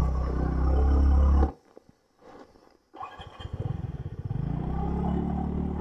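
TVS Ntorq 125 scooter's single-cylinder engine running steadily under way. About a second and a half in, it cuts off abruptly, leaving about a second and a half of near silence. The engine sound then comes back, uneven at first, and settles into a steady drone again.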